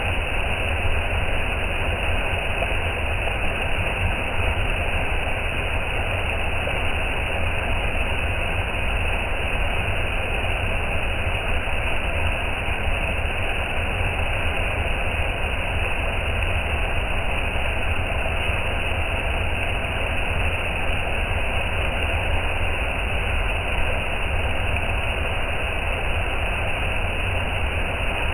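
Waterfall: falling water making a steady, unbroken rushing noise with a deep low rumble.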